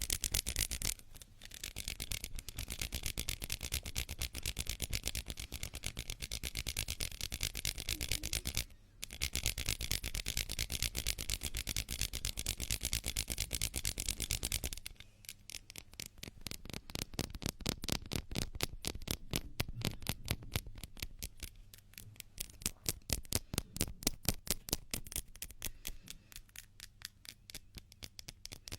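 Hands rubbing together in quick, continuous strokes, a dry rustling friction sound. It breaks off briefly about nine seconds in, and from about halfway the strokes become more separate and less hissy.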